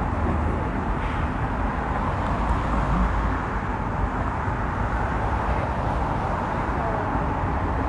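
Steady outdoor city ambience: a constant hum and hiss of traffic, with no single event standing out.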